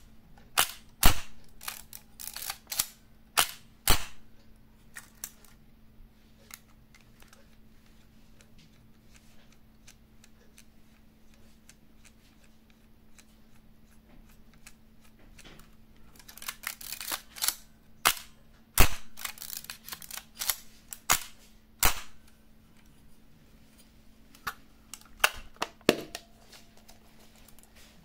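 Kowaflex Model E 35 mm SLR camera's mechanism clicking as it is worked by hand with the back open: groups of sharp mechanical clicks and snaps in the first few seconds, again from about sixteen to twenty-two seconds, and a few more near the end, with quieter handling between.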